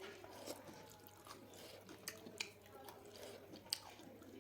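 Faint, scattered wet clicks and smacks of a person chewing chicken quietly, about one click a second.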